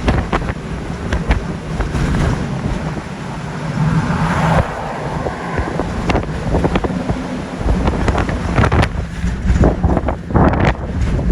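Gale-force wind of about 50 mph buffeting the microphone in uneven, rumbling gusts, over a rush of water and waves.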